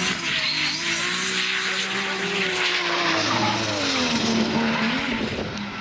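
Drift car engine at high revs with its tyres skidding. The engine pitch sags slowly, then climbs again about four and a half seconds in.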